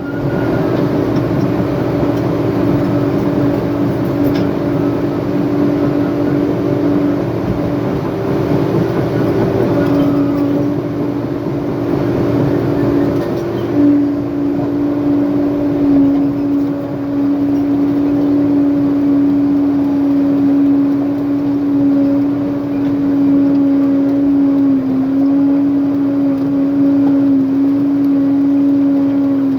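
Diesel engine of a heavy earthmoving machine running steadily, with a constant hum that barely changes pitch, and a couple of brief louder knocks around the middle.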